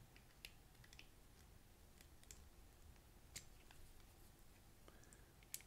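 Near silence broken by a few faint, sharp clicks of hands handling a lightsaber hilt and its fitted blade, with the sharpest click near the end.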